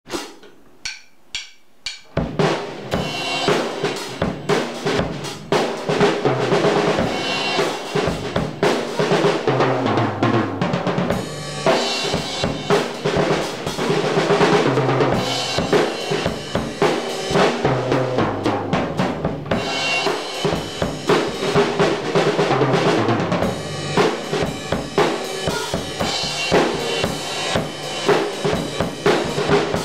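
A restored, roughly 50-year-old Maxwin by Pearl drum kit, with a Pearl 20-inch ride, Hohner hi-hats and a Meinl 16-inch crash. Four sharp clicks, then from about two seconds in a continuous groove of bass drum, snare, toms and cymbals, with a short break around the middle.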